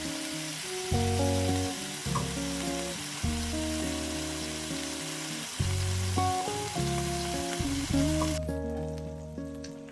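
Background music with a steady sizzling hiss under it. The hiss cuts off abruptly about eight seconds in, leaving the music.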